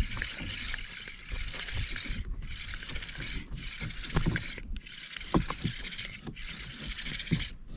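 Water splashing and sloshing against a small fishing boat in repeated surges about a second apart, with a few faint knocks.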